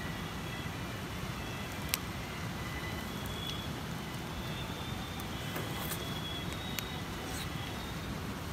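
Campfire burning, with a sharp crackle about two seconds in and another near the end, over a steady low rumble.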